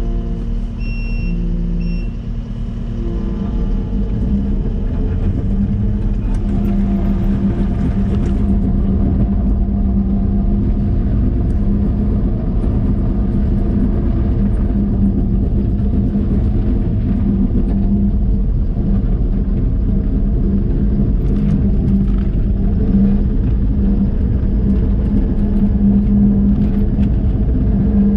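Kubota SVL97-2 tracked skid steer's diesel engine running steadily, with two short high beeps about a second in.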